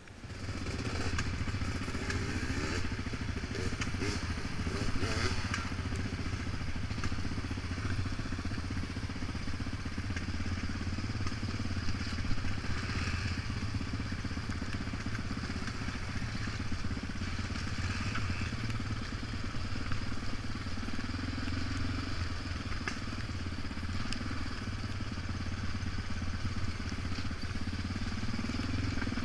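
ATV engine running steadily under way over a rough gravel trail, mixed with a small Kawasaki dirt bike's engine close ahead.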